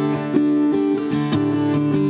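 Acoustic guitar played through a Schertler David acoustic amplifier, fed by an LR Baggs Anthem SL under-saddle piezo pickup: picked notes, several a second, ring over a held chord. The amp's warm switch is engaged with the EQ flat, taming the piezo's quacky, trebly brightness.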